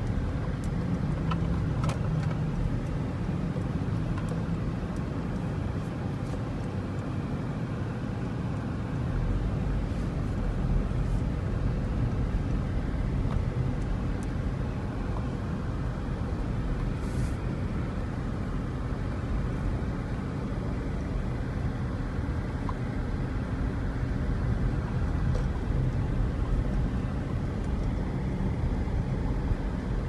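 Car driving slowly, heard from inside the cabin: steady low engine and road noise.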